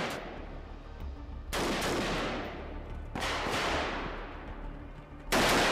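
Three single gunshots about a second and a half apart, each followed by a long echoing decay, over a steady low hum.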